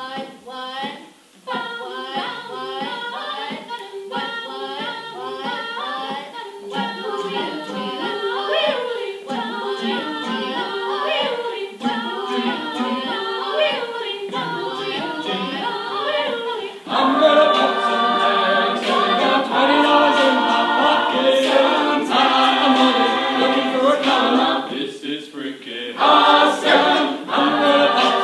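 Mixed-voice a cappella choir singing a pop mashup, with no instruments. About seventeen seconds in, the whole group comes in louder with held chords.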